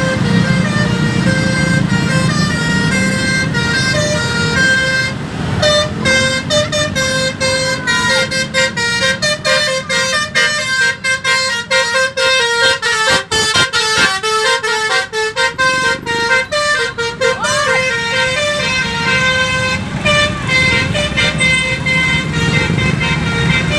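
Telolet musical horn on a garbage truck playing a tune: held horn tones step from pitch to pitch, with a quick run of short choppy notes in the middle. The truck's engine runs underneath, most audible at the start and near the end.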